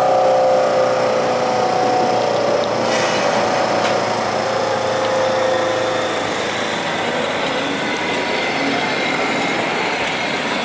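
Street traffic and a tram running on its street-level tracks, with a steady whine that sinks slightly in pitch over the first six seconds or so. Near the end a tram passes at close range.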